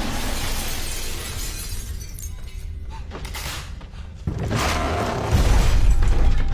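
Horror-film jump-scare sound design: a loud, noisy crash like shattering, with music under it. About four seconds in a second, louder surge hits with heavy bass.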